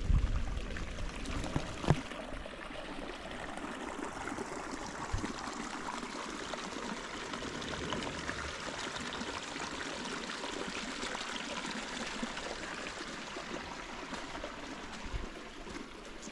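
Steady rush of running water that fades toward the end, with a sharp knock about two seconds in.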